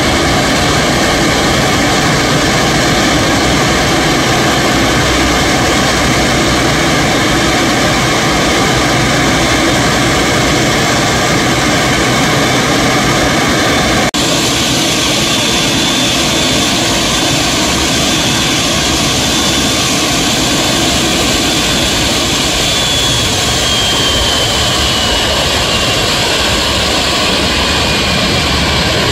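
Jet engines of a taxiing Boeing 787, a loud steady whine and rumble close by. There is a brief break about halfway through, then a high whine that holds and, over the last several seconds, slides down in pitch.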